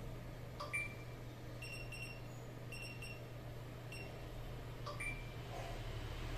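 Hioki digital multimeter giving two short beeps, about a second in and again near five seconds, with a few faint pips between them as the probes are moved on the board. A steady low hum runs underneath.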